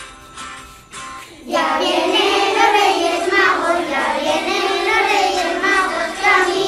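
A short, quieter instrumental intro, then about a second and a half in a group of young children starts singing together over a backing track.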